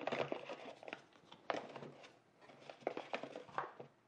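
Packaging and a power cord being handled: scattered light clicks, taps and rustles, with a brief pause near the middle.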